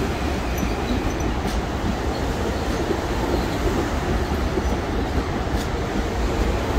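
Metro-North M8 electric multiple-unit commuter train rolling past close by: a steady rumble of wheels on the rails, with a few faint clicks.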